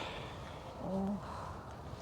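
A person's short low hum or murmur, slightly falling, about a second in, over a steady low background noise.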